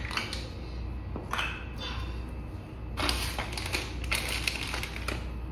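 A clear plastic bag of water-meter fittings being handled, crinkling in several short bursts over a low steady hum.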